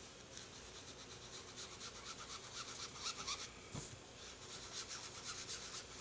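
Foam sponge dauber rubbing ink onto cardstock in quick, faint, repeated strokes, about four a second.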